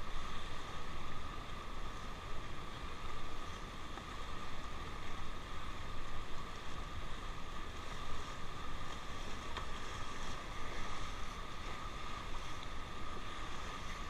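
River water rushing and splashing around a paddled inflatable raft, with wind buffeting the microphone.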